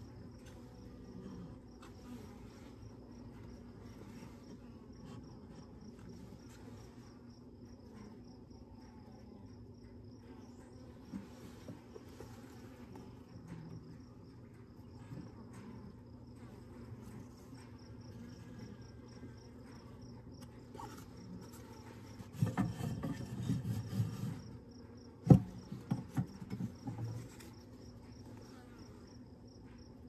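Honeybees buzzing with a steady low hum in an open Layens horizontal hive, the colony stirred by the inspection. Late on, wooden frames are scraped and shifted with a hive tool for a couple of seconds, followed by a sharp knock and a few smaller knocks.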